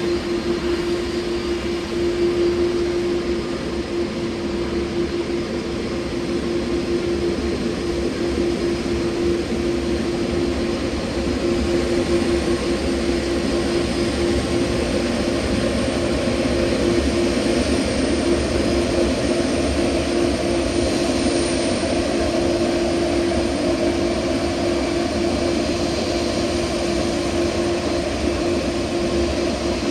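Airliner engines running steadily: an even rush of noise with one constant tone held under it, filling out a little from about twelve seconds in.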